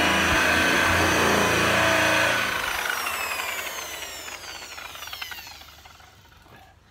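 Corded electric rotary buffer running with its pad on polished aluminum aircraft skin, then switched off about two seconds in. It spins down with a falling whine and fades to nearly nothing by the end.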